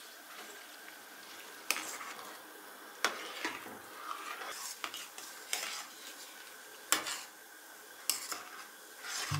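A metal spoon stirring cherries in a pot of simmering sugar syrup, clinking sharply against the enamel pan about eight times at irregular intervals. Under the clinks is a faint steady hiss from the simmering syrup.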